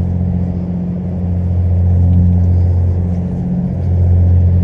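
Steady low drone of a running engine, a constant deep hum that swells and eases slightly.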